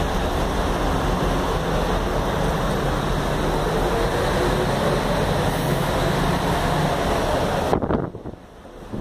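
Steady rushing road and engine noise from a moving double-decker tour bus, with a deep rumble underneath. It drops off abruptly near the end.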